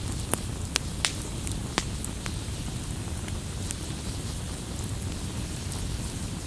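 Fire burning: a steady low roar with sharp crackles and pops, several close together in the first two seconds and fewer after.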